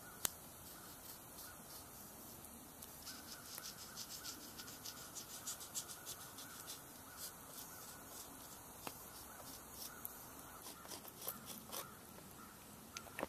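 A charred stick rubbed along the edge of a red oak bow stave to mark it with charcoal: faint scratching with many small ticks.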